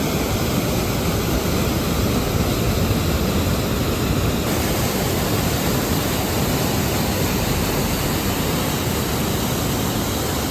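Waterfall rushing, a steady, dense wash of water noise with no pause; its texture shifts slightly about four and a half seconds in.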